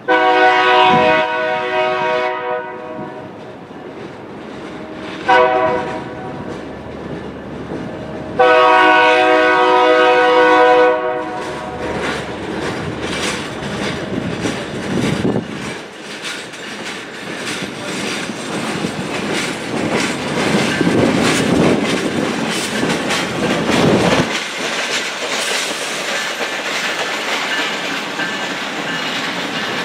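A diesel locomotive's multi-note air horn sounds a long blast, a short one, then another long one, followed by freight cars rolling past with a steady clickety-clack of wheels over rail joints.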